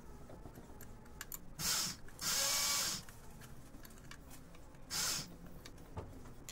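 A hand wrench working the carburetor's mounting nuts: small metal clicks, and three short buzzing bursts of the tool, about two seconds in, the longest lasting under a second, and again about five seconds in.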